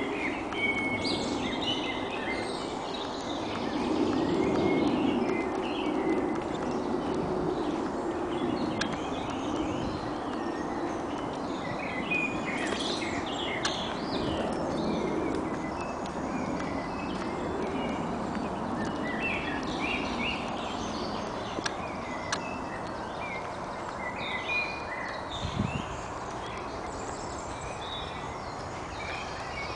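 Many wild songbirds singing and chirping, with short calls scattered throughout, over a steady background noise.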